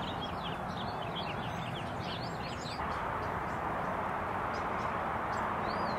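Small birds chirping, many quick calls in the first two seconds and a few more later, over a steady rushing outdoor background noise.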